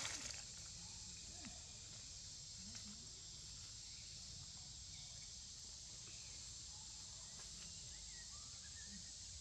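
Faint, steady high-pitched insect drone, with a brief crackle of dry leaves right at the start.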